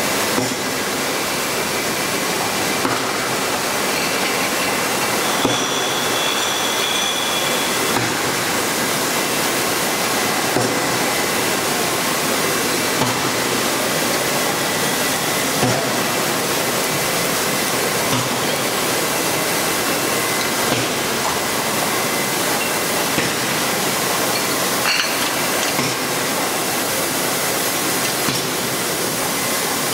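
Sparkling-wine disgorging line running: a steady mechanical hiss and clatter of conveyors and machinery, with a constant high whine and a light knock repeating about every two and a half seconds.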